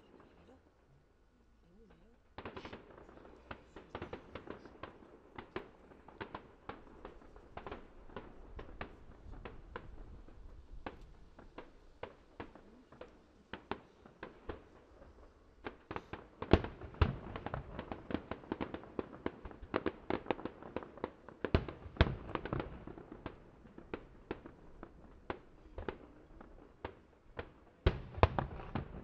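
Fireworks display: aerial shells bursting in quick succession, a rapid run of bangs with crackling in between. It starts a couple of seconds in and grows denser and louder from about halfway, with the heaviest bangs near the end.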